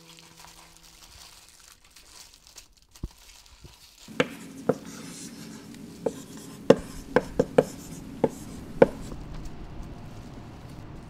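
Aluminium foil crinkling faintly as a wrapped sandwich is handled. From about four seconds in, a run of about nine sharp, irregularly spaced clicks or knocks over a steady low hum.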